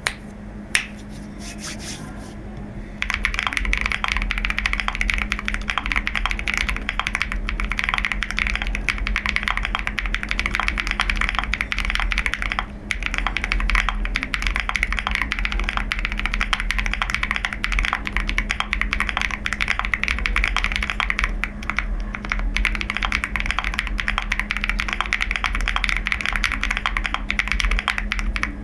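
Fast, continuous typing on a QK65 65% custom mechanical keyboard. A few separate key clicks come first, then a dense run of keystrokes starts about three seconds in, with a short break a little before halfway, all over a steady low hum.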